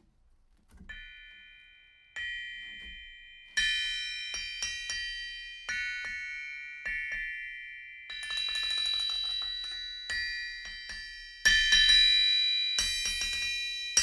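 A 330 lb Austrian-style cast steel anvil struck again and again with a hammer, each blow leaving a long, high, bell-like ring. A few light strikes come first, then a quick run of taps, and the loudest blows come near the end.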